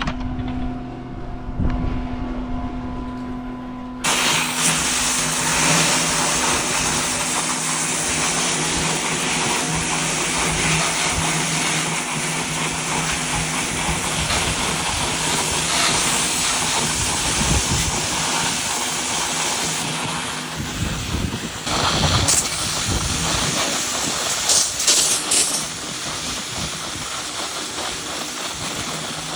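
Septic pump truck's engine running steadily, then about four seconds in a loud, steady hiss of water spraying from a garden hose starts and keeps on over the engine.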